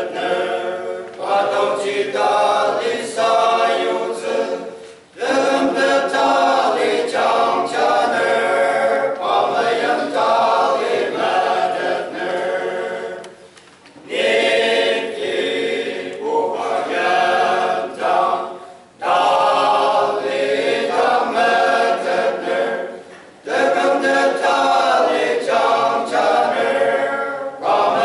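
Male voice choir singing a hymn a cappella, in long phrases with short breaks between them.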